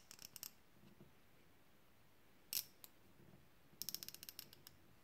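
Snap-on TKN72 quarter-inch drive round-head ratchet, a 72-tooth mechanism, worked back and forth by hand: faint, very fine clicking of the pawl over the teeth. A few clicks come near the start, a single one midway, and a quick run of clicks near the end.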